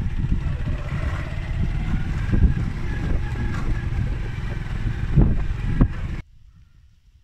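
Wind buffeting the microphone in open country: a heavy, gusty low rumble that cuts off suddenly about six seconds in, leaving a much quieter background.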